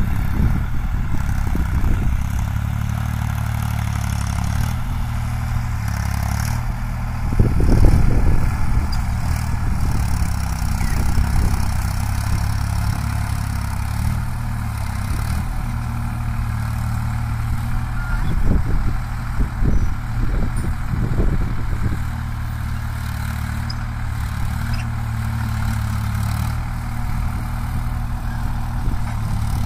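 Sonalika mini tractor's diesel engine running steadily while it pulls a nine-tine cultivator through field stubble. It gets louder and rougher for a moment about seven seconds in and again around eighteen to twenty seconds.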